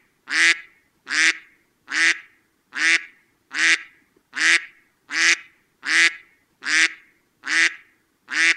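A short call sound, the same sound repeated about eleven times at an even pace, roughly once every 0.8 seconds: a looped sound effect.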